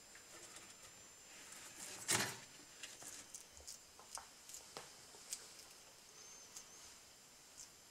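Frilled lizard taking prey from metal tweezers: one short, loud crunch about two seconds in, followed by irregular small crunching clicks as it chews.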